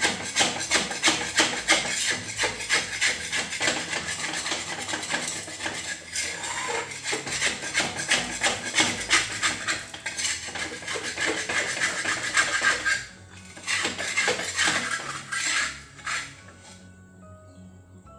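A steel spatula scraping and clicking rapidly against a metal pan as it loosens a cooked rice pancake from the pan. The scraping stops about two-thirds of the way through, comes back in a few short bursts, and gives way to faint background music near the end.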